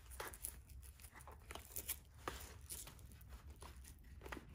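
Nylon webbing of a G-Code battle belt and a plastic R2 carrier clip scraping and rustling in short, faint rasps as the clip is wiggled past the fabric hook inside the belt that it catches on.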